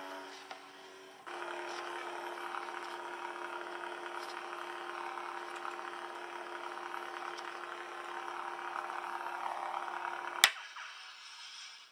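Lightsaber sound-effect chip playing its steady electronic hum, which starts about a second in. About ten seconds in, a sharp click cuts it off, followed by a short fading hiss.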